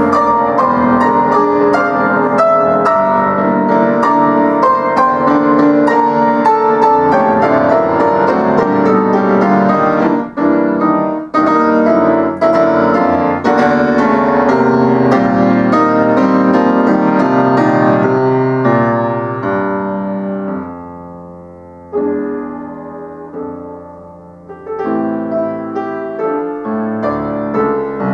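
Solo classical piece played on an Estonia concert grand piano: full, dense passages with two short breaks, then the playing dies down to a soft passage with a single struck chord and builds louder again near the end.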